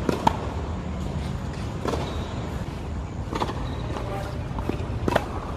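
Tennis balls being hit with a racket and bouncing on a hard court: sharp pops every second or so, the loudest right at the start and again near the end, over a steady low background rumble.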